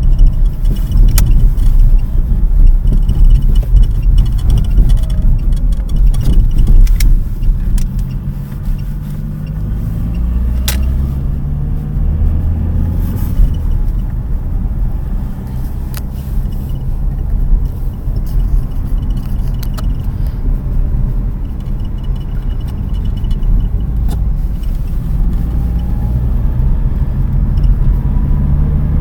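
A 2007 Lada Priora sedan on the move: a steady low engine and road rumble whose pitch rises and falls, with scattered short clicks and faint creaks from the right hood hinge.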